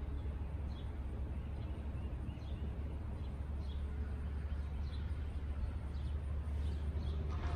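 A steady low rumble, with a small bird chirping faintly over it in short high chirps about every half second through the first few seconds.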